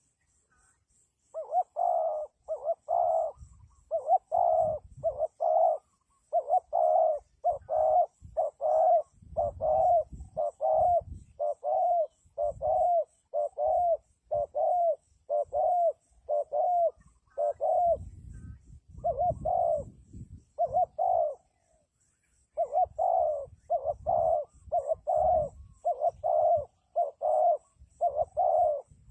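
Spotted dove cooing over and over: a long string of short, even coos, about one and a half a second, broken by a few brief pauses. It is the call used to lure wild doves.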